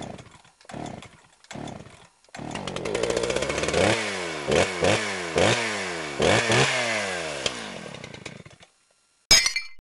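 A small petrol engine in an intro sound effect, chainsaw-like: three short bursts, then it runs and is revved again and again, the pitch falling away after each rev. A short sharp hit near the end.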